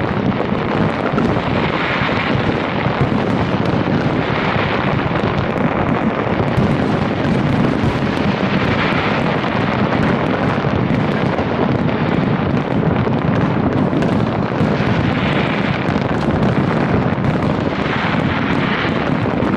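Aerial fireworks in a dense, continuous barrage: the bursts overlap into a steady rumble, with sharp bangs throughout.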